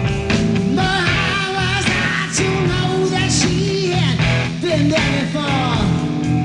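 Live hard rock band playing, with electric guitar, bass and drums, and the singer's voice.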